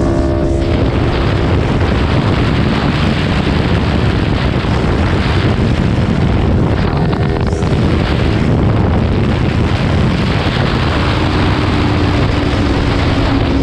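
Heavy wind rush on the microphone of a Kawasaki Ninja 400 at highway speed, with the bike's parallel-twin engine running underneath.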